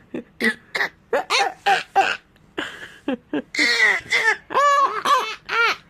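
A young child laughing in a run of short, high-pitched bursts, with a few rougher, breathy cough-like bursts in the middle.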